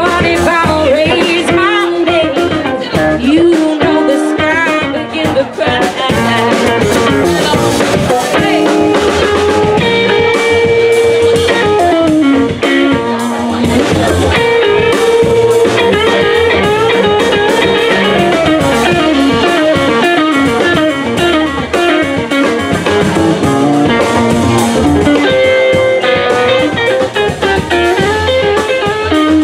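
Small swing band playing live: upright bass, drum kit, saxophone and a hollow-body electric guitar, with the guitar prominent and a voice or melody line over the steady beat.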